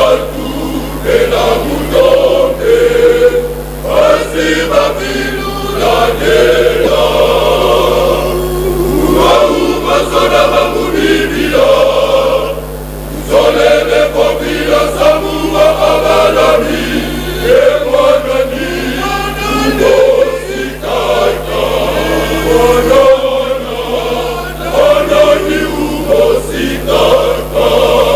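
Men's church choir singing a gospel song in harmony, in phrases of a few seconds with short breaths between, over a steady low hum.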